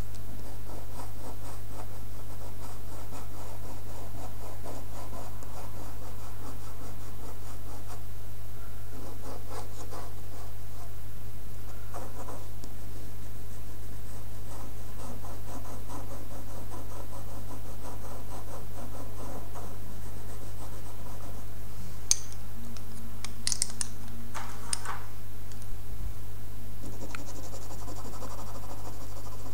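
A dark pencil scratching rapidly across paper in quick shading strokes, with a few short pauses and some sharper ticks near the end. A steady low hum runs underneath.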